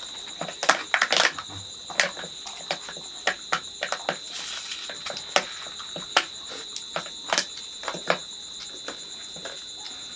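A steady high insect trill, typical of crickets, runs under irregular sharp clicks and smacks from people eating rice by hand from metal plates.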